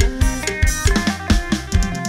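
Lively Isan phin instrumental: a plucked phin melody with bending notes over an electronic drum kit playing a steady beat on bass drum and snare.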